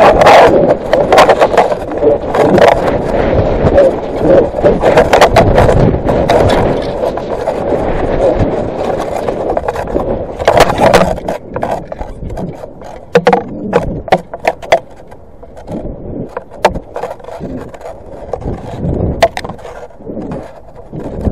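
Wind rushing over a model rocket's onboard camera as the rocket descends, with rattling knocks and scrapes from the airframe and camera mount. The wind noise is strong for the first ten seconds or so, then drops off, leaving scattered knocks.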